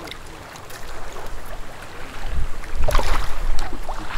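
Gusty wind rumbling on the microphone, swelling about two seconds in, with a few short knocks or rattles around the three-second mark.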